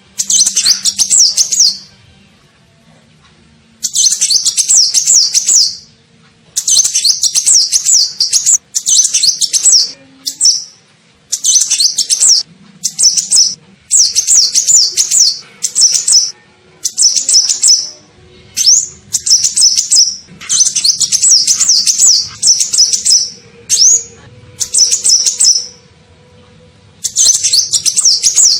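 Lure-call recording of a kolibri ninja sunbird: loud bursts of rapid, high, twittering chirps, each a second or two long, repeated with short pauses between them.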